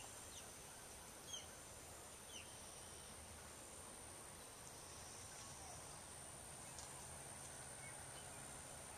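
Near silence: faint steady background hiss with a thin high whine and a few faint short chirps, the clearest about a second and a half in.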